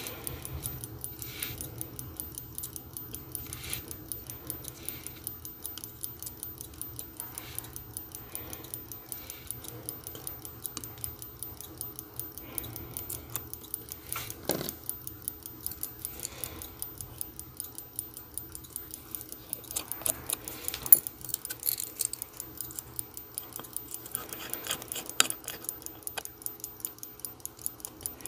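Sicura calibre BFG 158 mechanical watch movement ticking fast and evenly as its balance runs, with a few louder clicks of pegwood and tools against the movement. A clothes dryer hums steadily underneath.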